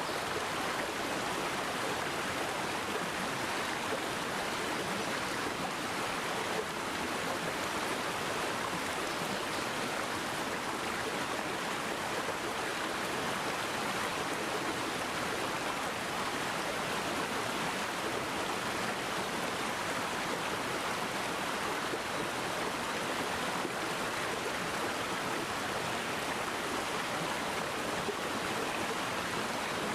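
Mountain stream water running steadily over rocks, a continuous even rush.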